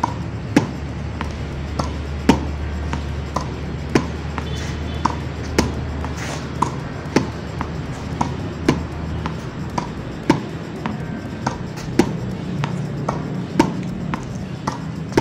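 A tennis ball hit again and again with a racket in topspin forehand strokes, bouncing on the hard court between strokes. There is a sharp racket hit about every second and a half, with lighter bounce knocks in between.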